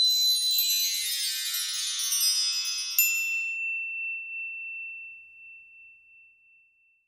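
Logo chime sting: a shimmer of many high, bell-like tones fading away, then a single bright ding about three seconds in that rings on and slowly dies out.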